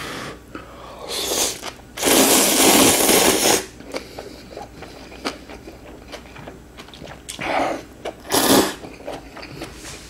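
A person slurping spicy instant ramen noodles: one long, loud slurp about two seconds in and shorter slurps near the end, with small chewing clicks in between.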